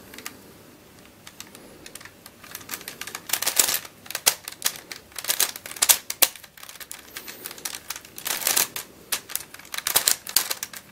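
Plastic pieces of an MF8 Helicopter Dodecahedron twisty puzzle clicking and clacking in quick runs as its faces are turned to scramble it, starting about two seconds in.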